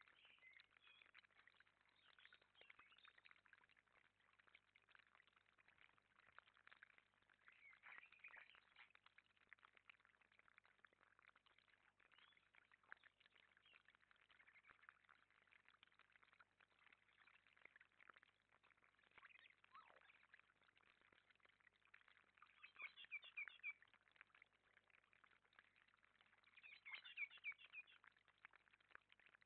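Common blackbirds giving two short runs of quick calls, the first about three-quarters of the way through and the second near the end, over the faint steady trickle of a small pond cascade.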